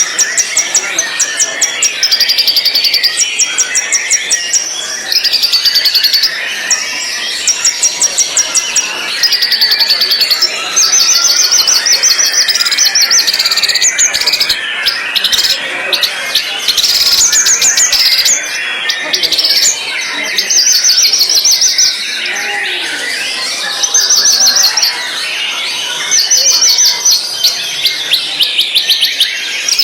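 White-rumped shama singing: bursts of fast, high trilled notes, each a second or two long, repeated over and over with short gaps. Busier, lower bird chatter runs beneath them.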